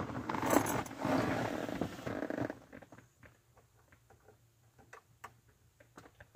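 Rustling and handling noise for about two and a half seconds, then a run of faint small clicks and ticks as a short piece of wire is pushed into the terminals of the car's under-dash diagnostic connector.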